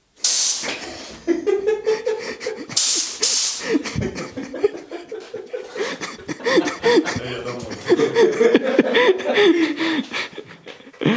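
Men laughing: loud breathy bursts of laughter in the first few seconds, then wavering chuckles.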